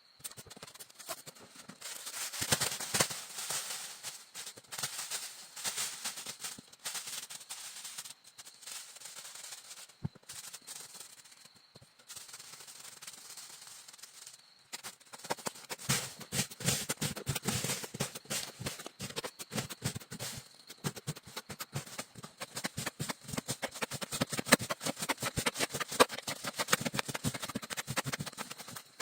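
Dense rustling and scraping made of many quick crackles, thinning out in the middle and busier again in the second half.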